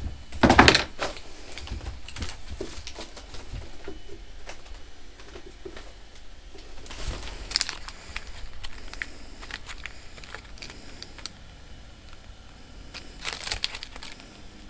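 Paper rustling and crinkling as a folded paper origami flower is handled, with small crackles throughout. The loudest rustle comes about half a second in, with two more louder rustles about halfway and near the end.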